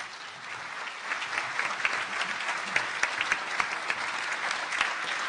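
Audience applauding at the end of a talk: many hands clapping, swelling about a second in and holding steady.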